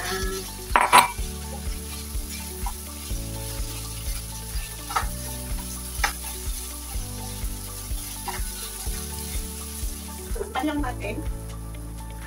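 Pork and bitter melon sizzling in a non-stick frying pan over a gas burner while being stirred with wooden chopsticks, which knock against the pan now and then, hardest about a second in. Near the end a glass lid clatters onto the pan.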